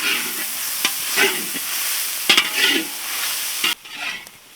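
Food frying in hot oil in a pan, sizzling steadily while a spatula stirs and scrapes it in a few strokes. The sizzle cuts off suddenly near the end.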